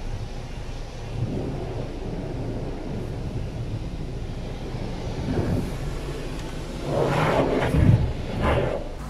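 Car-wash water spray hitting the car, heard from inside the cabin: a steady low rumble with heavier surges of spray about seven and eight seconds in.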